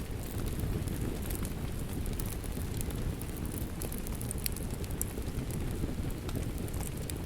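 Steady rain together with a crackling fireplace: an even hiss of rain, with scattered sharp crackles and pops from the fire.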